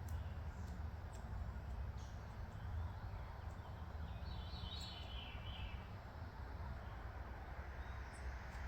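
Outdoor backyard ambience with a steady low rumble, and a wild bird giving one short chattering call a little past the middle.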